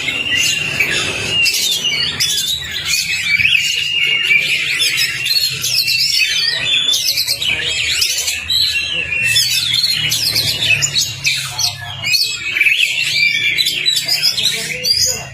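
Oriental magpie-robin (kacer) singing in a fast, unbroken stream of varied whistles, trills and chirps, the lively display song used to trigger other kacers to sing.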